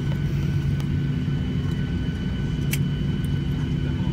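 Steady cabin noise inside a Boeing 737-800 on the ground after landing, its engines at idle: a constant low hum with a faint high whine, and one small click about three seconds in.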